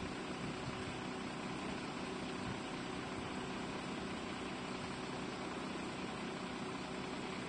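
An engine idling steadily, with a few low hum tones under a constant hiss.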